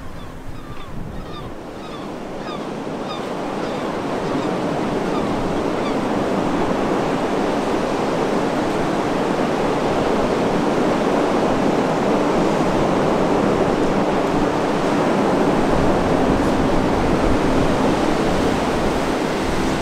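Sea surf breaking on the shore with wind: a steady rushing wash that swells up over the first few seconds and then holds. A few short high chirps sound in the first seconds.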